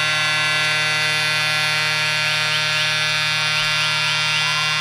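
Arena goal horn sounding one long, steady, loud blast, signalling a home-team goal.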